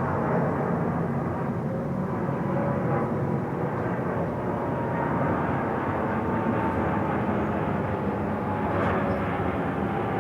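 Boeing 747's jet engines on landing approach: a steady rumbling roar with a faint high whine that slowly falls in pitch as the jet passes.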